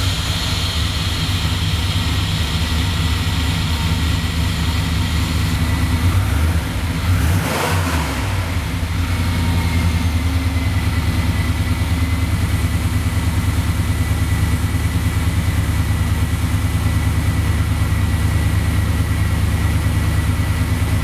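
A 1990 Chevy pickup's engine idling steadily, just started, with a short louder disturbance about seven seconds in.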